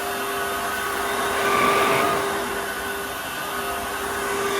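Dirt Devil Versa cordless stick vacuum running steadily, a loud motor with one steady tone over the rush of air.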